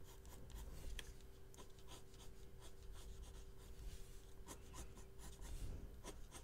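Faint scratching of a colored pencil on paper in short, irregular strokes as petals are outlined.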